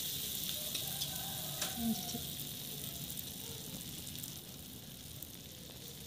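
Sambal-coated fried tofu sizzling in a steel wok over the flame, a steady hiss that slowly fades, with a few faint taps.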